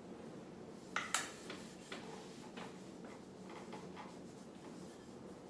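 Light clicks and knocks of an Edgun Matador PCP air rifle being handled and turned while it is wiped down with a cloth, the two loudest a little after a second in, then scattered softer taps.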